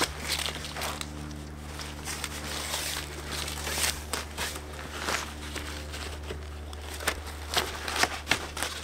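Screen-tent wind panels rustling and crinkling as they are handled and attached to a pop-up screen tent, with scattered clicks. A steady low hum runs underneath.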